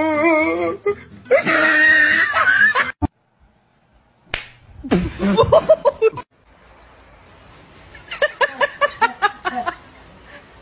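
People laughing in several short bursts of quick repeated pulses, with a sharp smack about three seconds in.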